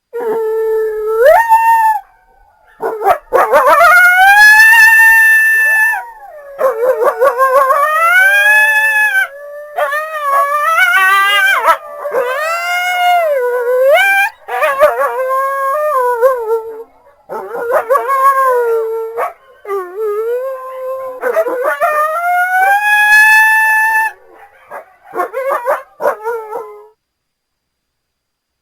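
Coyotes howling: long rising and falling howls, several overlapping at times, breaking into quick yips near the end.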